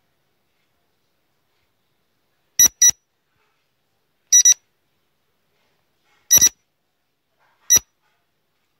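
Quiz countdown-timer sound effect: short, high electronic beeps, starting about two and a half seconds in. A quick double beep comes three times, then a single beep, less than two seconds apart, with silence in between.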